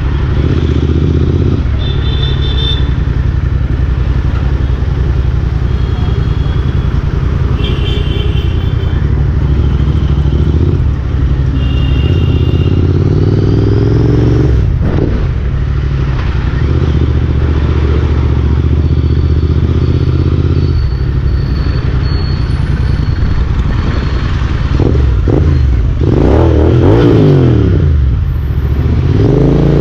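Motorcycle engine running while riding slowly through city traffic. Its pitch rises and falls near the end as the rider changes speed, and a few short high beeps are heard early on.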